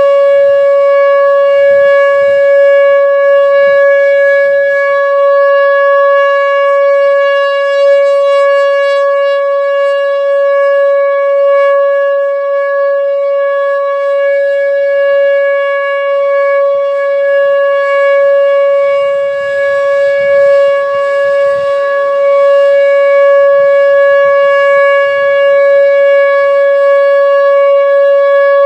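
Whelen Vortex R4 outdoor warning siren sounding its steady Alert signal: one loud held pitch with strong overtones. Its loudness wavers slightly as the rotating head turns.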